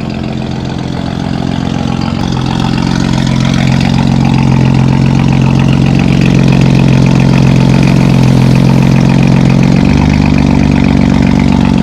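A car engine running at a steady idle, loud, growing louder over the first few seconds and shifting slightly in tone about ten seconds in.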